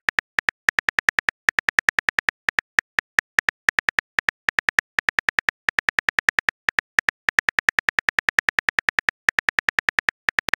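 Phone keyboard typing clicks, one short tick for each letter typed, coming rapidly at about five a second with a few brief pauses.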